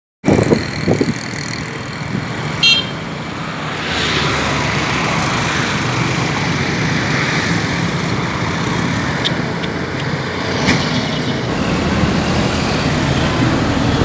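Road traffic noise: cars, vans and motorbikes running past, with a brief high-pitched toot about three seconds in.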